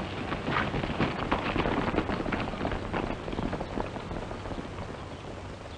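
Horses' hoofbeats on dirt as riders ride off, fading away, over the steady hiss of an old film soundtrack.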